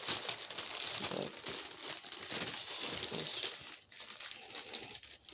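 Plastic bag crinkling and rustling as it is handled, with many small crackles.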